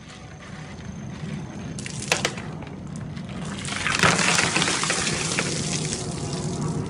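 Water poured from a clear plastic container over a person's head, gushing and splashing down onto him, loudest just as the pour begins, about four seconds in. A couple of sharp knocks come about two seconds in, before the pour.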